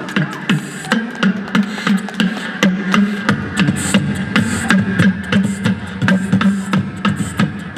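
A crew of beatboxers performing together through a PA system. A fast, steady beat of mouth-made drum hits runs over a held low vocal bass tone.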